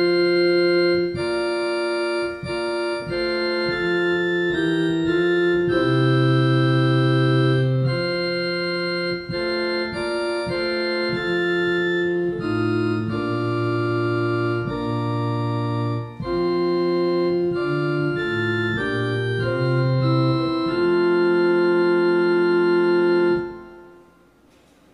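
Organ playing a slow hymn in held chords over a bass line, each chord sustained at full strength until the next. Near the end the last chord is released and the sound drops away.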